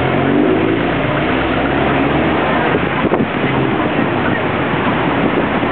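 City street traffic: vehicles running on the road. An engine's pitched hum stands out in the first couple of seconds, over a steady rushing noise.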